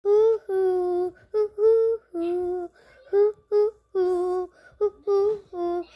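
A young girl singing unaccompanied: a string of short held notes, broken by brief pauses.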